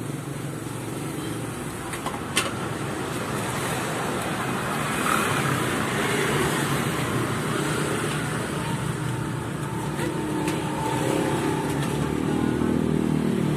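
Road traffic going past: a steady wash of vehicle noise, with one engine growing louder near the end. A single sharp click about two seconds in.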